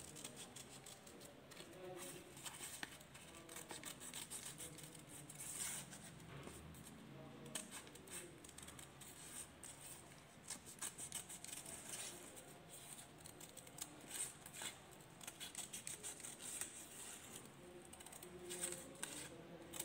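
Scissors snipping through a sheet of paper, cutting out a stencil shape: faint, irregular runs of short snips.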